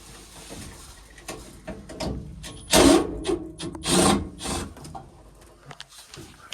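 Scraping and rubbing from furnace parts being handled and pulled out during disassembly, with scattered clicks and two loud scrapes about three and four seconds in.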